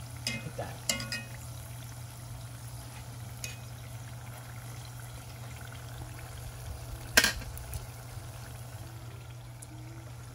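Spring rolls deep-frying in hot oil, a steady sizzle, with metal tongs clicking against them and the pot a few times in the first second. One sharp click about seven seconds in is the loudest sound.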